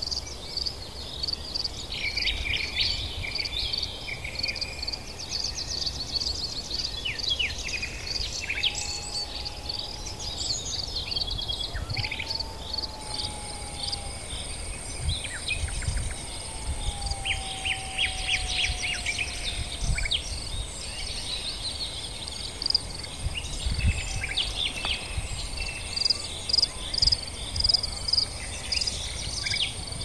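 Outdoor nature ambience: several small birds chirping and trilling throughout, with a few slow, falling whistled notes in the middle. A steady, very high thin tone comes in a little before halfway, and a low rumble runs underneath.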